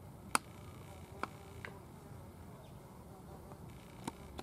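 A faint low rumble with four short, sharp clicks scattered through it; the first, about a third of a second in, is the loudest.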